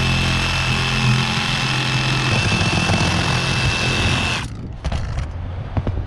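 Cordless reciprocating saw running at full speed with a steady high whine, its blade cutting through the roofing around a flat-roof drain, then stopping suddenly about four and a half seconds in. A few light knocks follow.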